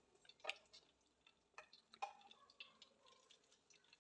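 Near silence, with a few faint pops and ticks from hot leftover ghee in a frying pan, the loudest about half a second and two seconds in.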